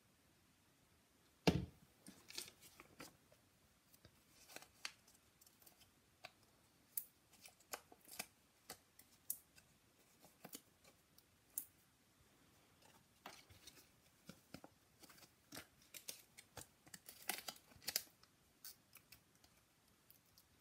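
Faint crackling and ticking of a sheet of foam adhesive dimensionals being handled and picked at as pads are peeled off, with one sharp tap about a second and a half in.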